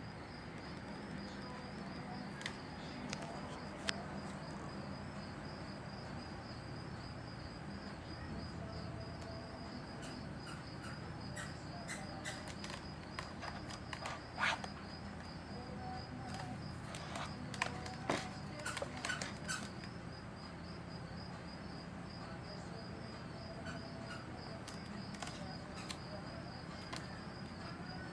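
Crickets chirping steadily in a fast high-pitched pulse over a low steady hum, with scattered light clicks and knocks that cluster in the middle.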